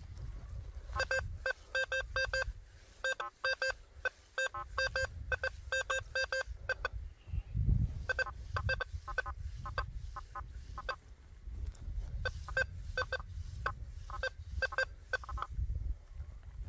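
Quest V80 metal detector sounding target signals: short beeps all at the same pitch, coming in quick runs of several at a time with short gaps between. A low rumble sits underneath, with a heavier thump about halfway through.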